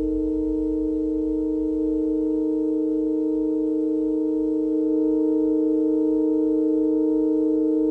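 Electronic drone of several steady, pure tones held together in a chord, with a low pulsing throb underneath that fades away about two seconds in.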